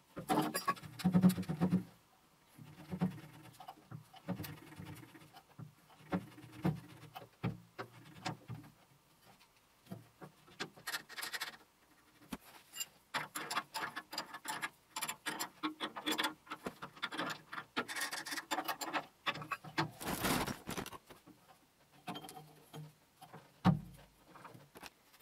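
Hands working on a lathe's motor mounting and drive: irregular clicks, knocks and rubbing scrapes of metal parts being handled. There is a longer, louder scrape about twenty seconds in and a dull thump near the end.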